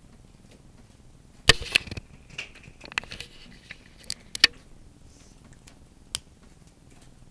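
A handful of sharp clicks and knocks from objects being handled on a desk, the loudest about a second and a half in and again around four and a half seconds in, with a faint scratchy rasp between them.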